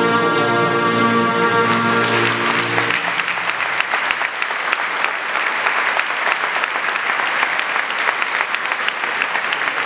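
Music holding sustained chords ends within the first three seconds as audience applause rises over it; the clapping then goes on steadily.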